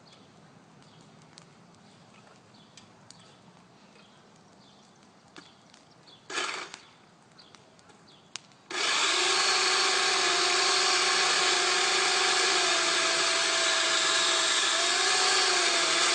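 Faint clicks over near quiet, a brief rasp about six seconds in, then a chainsaw cuts in abruptly about nine seconds in and runs at high, fairly steady revs, its pitch dipping slightly near the end.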